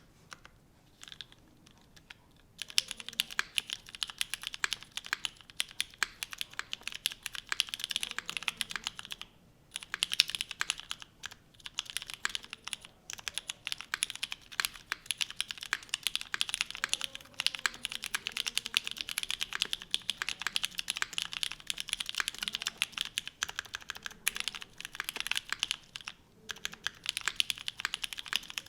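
Fast, continuous typing on a custom mechanical keyboard: gasket-mounted ai03 Vega with an aluminium plate, lubed Cherry MX Brown tactile switches and GMK keycaps. A few isolated key presses come first; steady rapid clacking starts about two and a half seconds in, with brief pauses about nine seconds in and near the end.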